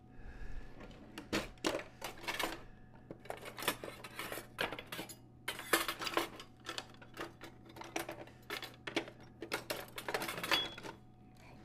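Metal kitchen utensils clattering and clinking against each other in an irregular series as a hand rummages through a drawer full of them.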